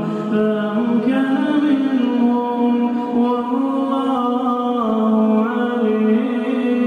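A man's voice reciting the Quran in melodic tajweed style, holding long drawn-out notes that step up and down in pitch without a break.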